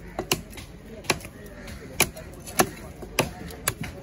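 Heavy fish-cutting knife chopping through red snapper head and bone onto a wooden log block: about seven sharp chops at uneven intervals.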